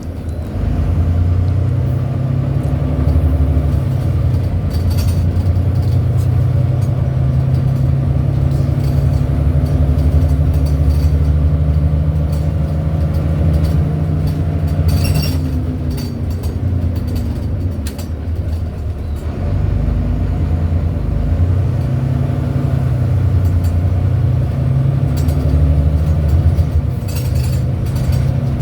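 Volvo B9TL Wright Gemini double-decker bus heard from on board: the engine runs steadily, its pitch rising and falling with the gear changes a few times. Brief high squeaks come through now and then, one about fifteen seconds in and several near the end.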